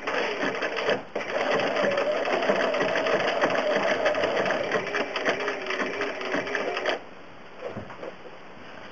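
Home sewing machine stitching fast: a rapid run of needle strokes over a steady motor tone, with a brief break about a second in. It stops abruptly about seven seconds in, leaving a few faint clicks.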